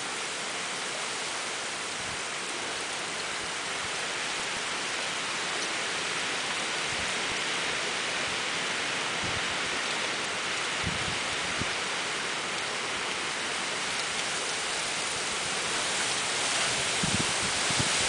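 Typhoon wind and rain rushing steadily through bamboo and trees, growing a little louder near the end. A few low gusts thump on the microphone.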